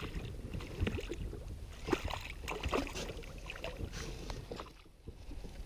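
Scattered small knocks, clicks and rustles of handling aboard an inflatable PVC fishing boat.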